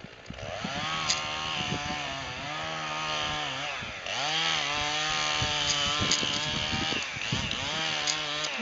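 Chainsaw running and cutting wood, its pitch dropping and rising repeatedly as the engine bogs in the cut and revs back up, with a short dip about four seconds in. It starts about half a second in and stops near the end.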